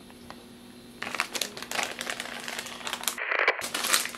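Plastic soft-bait packages crinkling as they are handled, starting about a second in.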